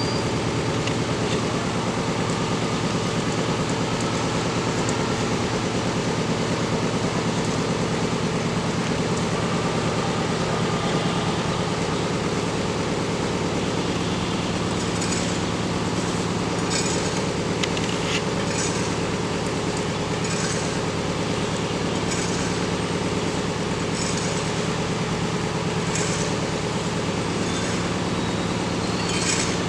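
A steady low mechanical drone, like a running engine, with several steady tones in it. From about halfway through, short high-pitched sounds come in roughly every two seconds.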